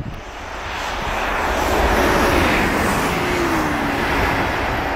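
Electric train passing at speed: a rushing whoosh that swells to a peak about two seconds in and then eases off, with a humming tone that drops in pitch as the train goes by.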